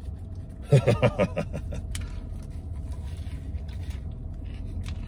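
A man's short wordless vocal sound about a second in, then faint bite and chew clicks as he bites into a sandwich, over the steady low rumble of a truck cab.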